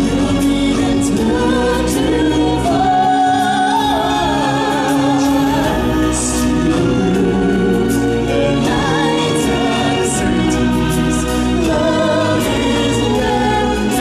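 Stage-show music: several voices singing held, wavering notes over continuous instrumental accompaniment.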